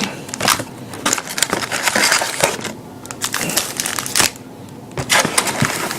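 Wrapped trading-card jumbo packs crinkling and rustling as they are handled and pulled out of a cardboard box, in uneven bursts with brief lulls.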